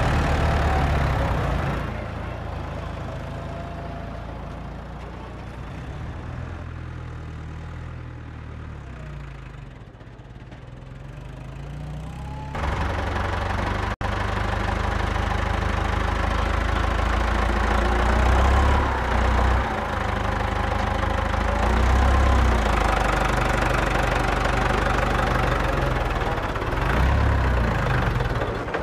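A motor running steadily with a low, engine-like rumble and some rising and falling whine as it works. It fades lower for several seconds, then comes back loud abruptly about halfway through.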